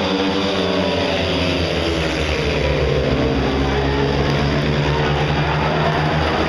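A pack of speedway bikes racing, their 500 cc single-cylinder methanol engines running hard, the engine note rising and falling as they go through the bend.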